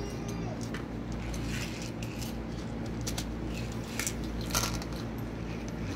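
Scattered light clicks, taps and scrapes of small plastic and metal parts as the laptop is being opened up, over a steady low hum.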